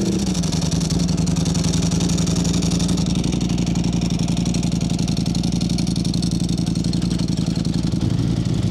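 Ducati 1103 cc V4 superbike engine idling just after being started. The revs drop in the first half second and then settle to a steady, evenly pulsing idle.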